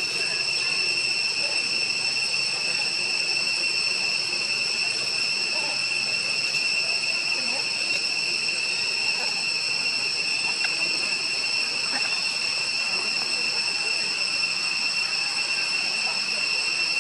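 Steady high-pitched insect chorus, an unbroken drone with no pauses.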